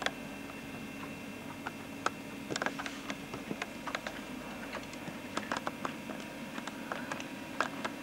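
Irregular light clicks and taps of a camcorder being handled, fingers knocking and rubbing on its body, over a steady faint hum.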